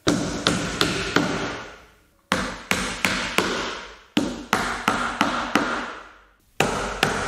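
Hammer tapping the nails of a wooden tackless carpet strip down into the floor, about three quick blows a second, in short runs that break off every two seconds or so.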